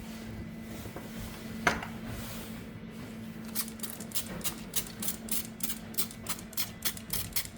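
A single sharp click, then from about halfway a run of quick light clicks, roughly three a second, over a steady low hum.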